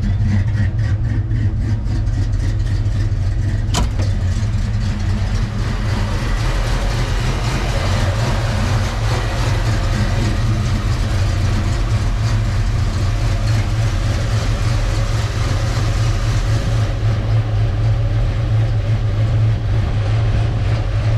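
Foxbody Mustang engine idling steadily but running poorly, which the owner takes for the rough idle and bogging he is chasing, while the computer relearns idle after a new MAP sensor, idle solenoid and throttle position sensor. A sharp click sounds about four seconds in, and a high hiss drops away near the end.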